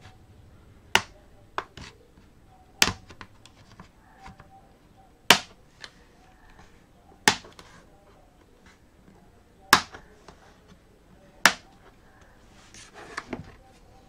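Plastic clips of a Lenovo ThinkPad E14 Gen 4's bottom cover snapping loose as a pry tool works along the seam: about seven sharp clicks, a second or two apart, then a quick run of smaller clicks near the end.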